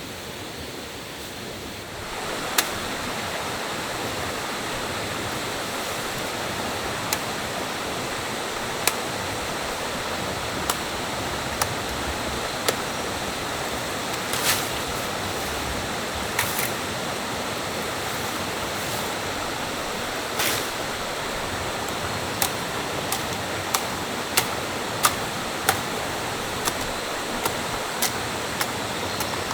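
Rushing stream water, a steady noise that gets louder about two seconds in. Short sharp knocks sound over it every second or two, coming more often near the end.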